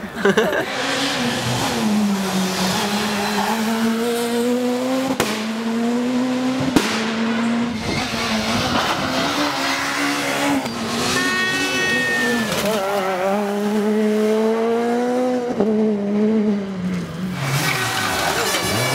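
Rally cars driven flat out on a stage, one clip after another: engines revving hard, pitch rising and dropping through gear changes as each car passes. The clips are cut together with several sudden breaks.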